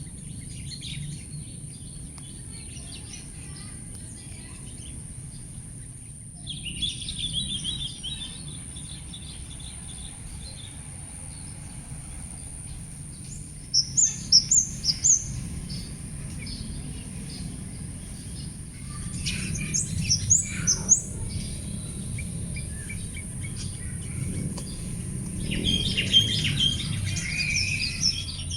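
Wild birds singing and calling: a buzzy trill about six seconds in, a quick run of four loud high chirps around fourteen seconds, more chirps around twenty seconds and a chattering burst near the end. Beneath them run a steady high hiss and a low rumble.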